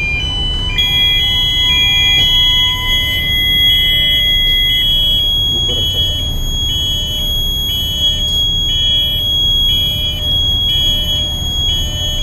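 Engine control room alarm buzzers sounding as main-engine control is forced over from the bridge. One steady high tone holds, while a second beeps about three times every two seconds, over the steady low rumble of engine-room machinery.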